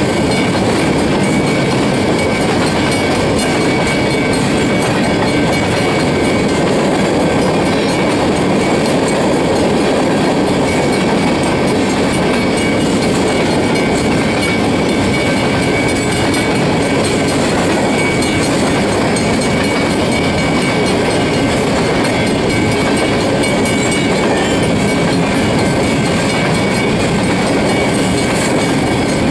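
Freight train of steel rock gondola cars rolling past close by: a loud, steady rumble of steel wheels on the rails, with a thin steady high tone over it.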